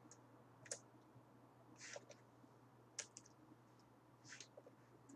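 Faint computer mouse clicks: two sharp clicks about two seconds apart, with softer brief rustles between them, over a low steady hum that is otherwise near silence.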